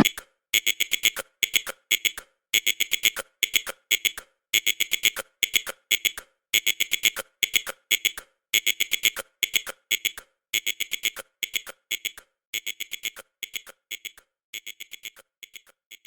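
Electronic alarm beeping: high-pitched beeps in quick groups of several, about two groups a second, growing quieter over the last few seconds.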